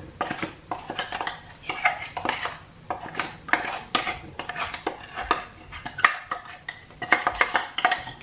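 Stainless-steel mixer-grinder jar being shaken and tapped upside down, an irregular run of metallic knocks and clinks, several a second, as powdered sugar falls out of it.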